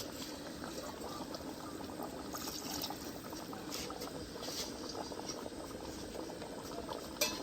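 Pot of egusi-based soup bubbling at a boil, with a steady patter of small pops. A single sharp knock comes just before the end.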